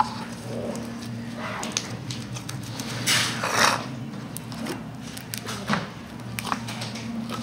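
Slime being squeezed and pressed by hand into a plastic cup: small wet clicks and pops, with a longer squelch of pushed-out air a little after three seconds in.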